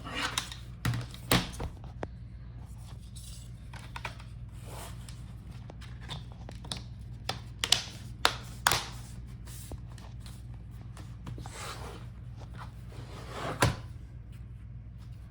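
Plastic hinge cover being fitted and snapped onto a laptop's screen hinges: scattered sharp plastic clicks and knocks with short scrapes of handling, a few louder snaps about a second in, around the middle, and near the end.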